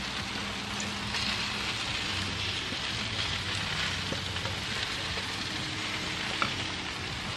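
Chicken leg quarters sizzling steadily on a hot grill as an apple cider vinegar mop is brushed onto them, with a few faint ticks.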